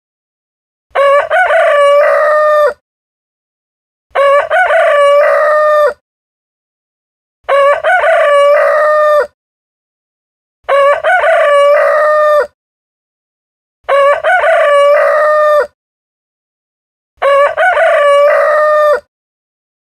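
Rooster crowing cock-a-doodle-doo, six times, each crow about two seconds long and coming every three seconds or so. The crows are alike in shape with complete silence between them, as in a looped recording of one crow.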